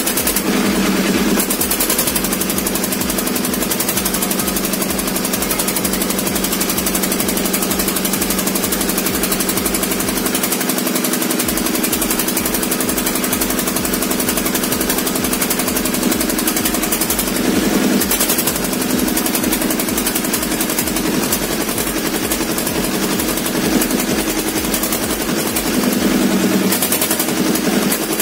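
Freshly overhauled Kirloskar two-cylinder water-cooled diesel engine running with a loud, fast, hard knocking beat. It swells louder briefly a few times.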